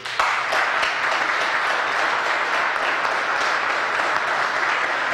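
Seated audience applauding steadily, the clapping starting all at once right after a speech ends.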